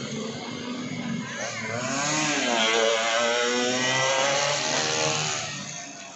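Racing motorcycle engine at high revs as a bike comes by on the practice circuit: it grows louder, dips briefly in pitch about two seconds in, holds a strained high note, then fades away near the end.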